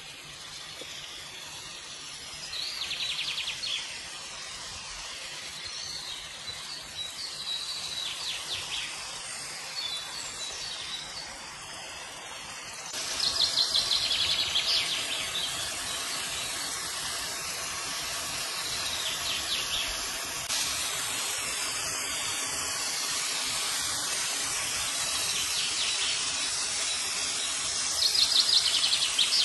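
Chicken pieces sizzling in oil in a nonstick pan: a steady hiss that flares up into louder crackling about five times as the pieces are stirred with a spatula.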